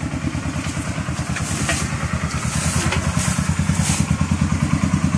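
A small engine running steadily with a fast, even low thumping, along with water sloshing and splashing from wading in shallow muddy water.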